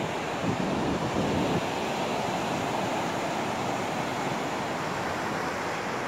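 Pacific surf breaking and washing up a sandy beach, a steady rushing wash, with some wind on the microphone.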